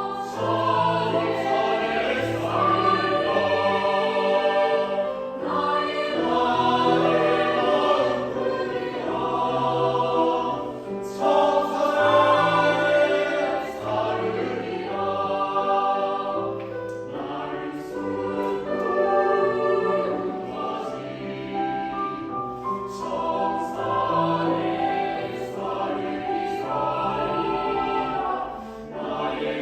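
Choir singing a piece in concert, with sustained sung chords that move on steadily.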